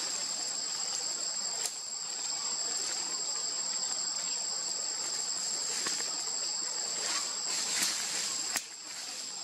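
Steady, high-pitched chorus of forest insects: a continuous buzz with a thin, higher whine held above it. A few faint short clicks come through, one a little under two seconds in and one near the end.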